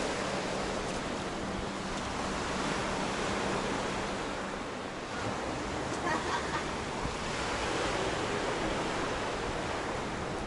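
Steady rush of sea surf washing against the embankment, mixed with wind.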